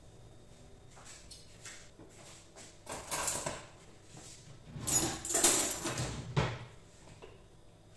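Pots and pans being handled and put away in a kitchen: a short burst of clattering about three seconds in, then a longer, louder one from about five to six and a half seconds.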